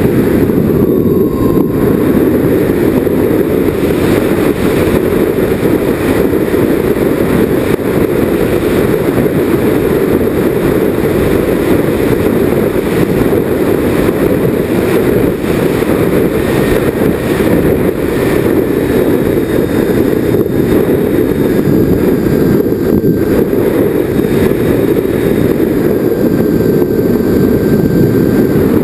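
Onboard sound of a twin-engine RC airplane in flight: a loud steady drone of the motors mixed with wind rushing over the nose-mounted camera. A faint whine shifts slowly in pitch as the throttle changes.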